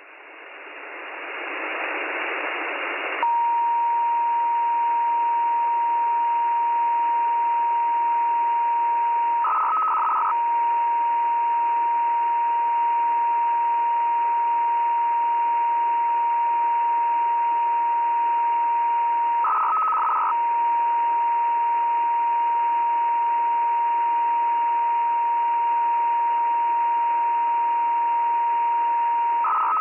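Audio from an SDR receiver fed by a loop antenna. It starts as rising band-limited hiss. About three seconds in, a steady whistle of a radio carrier's beat note sets in over the hiss, and a brief higher tone breaks in about every ten seconds.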